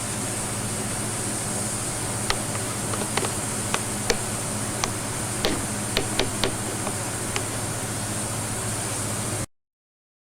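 Steady background hum and hiss, with a few light clicks and knocks scattered through it, cutting off suddenly to silence near the end.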